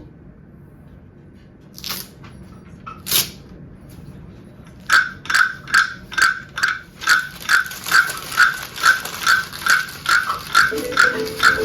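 Hand-made foley sound effects: two short swishes, then from about halfway a steady series of sharp knocks, a little over two a second, each with a brief ringing tone, typical of a percussion instrument struck in time.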